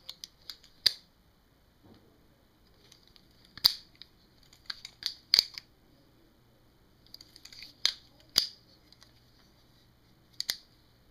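Custom balisong (butterfly knife) with G10 handles on steel liners being handled open and closed: sharp metallic clicks and clacks as the handles swing on the pivots and knock together and the latch catches, with light rattling between, in several bursts with a few sharp clicks in each.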